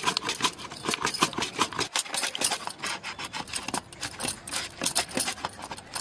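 Potato being slid repeatedly over the blade of a handheld chips cutter: a quick, uneven run of short rasping slicing strokes, several a second.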